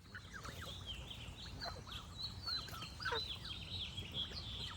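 Geese honking amid a busy chorus of small songbirds chirping and trilling, over a steady low rumble.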